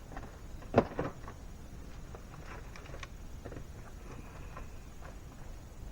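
Objects being handled: a sharp knock about a second in, then a scattering of light clicks and taps.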